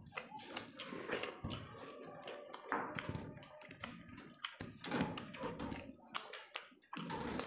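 Close-up eating sounds: fingers mixing and scooping curry-soaked rice on stainless steel plates, with chewing and lip smacking from full mouths, heard as a steady run of irregular small clicks and taps.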